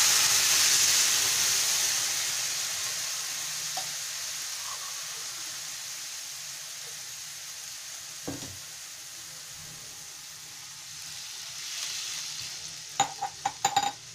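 Water sizzling as it hits a hot kadai of stir-fried vegetables and noodles: a loud hiss that dies away slowly over several seconds as the pan cools. A spatula knocks once and then clicks sharply against the pan several times near the end.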